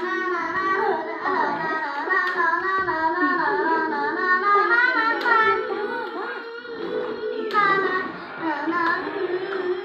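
Toy tow truck playing a telolet basuri horn melody: a warbling tune over a steady held note, running without a break.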